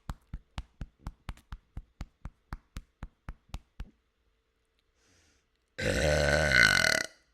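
A woman's loud, drawn-out burp, lasting a little over a second near the end. It is preceded by a run of evenly spaced ticks, about four a second, that stop about halfway through.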